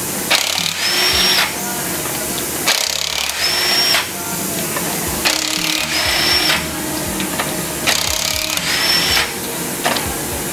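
Pneumatic impact wrench running off a truck wheel's lug nuts one at a time. It fires in four bursts of about a second each, roughly two and a half seconds apart, each opening with a quick rising whine, and a fifth starts near the end.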